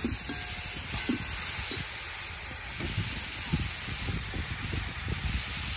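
Corn pieces and chopped seasonings sizzling in a metal pot over a wood fire, a steady hiss, with soft knocks from the ladle stirring at the start.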